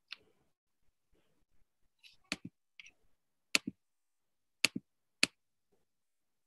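A handful of sharp, short clicks from someone working a computer, some coming in quick pairs, from about two seconds in.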